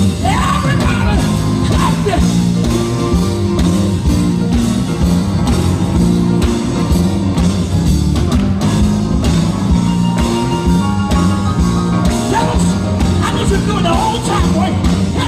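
Live gospel band playing, with a drum kit and electric guitar under sustained instrumental lines; a lead singer's voice rises in at the start and again near the end.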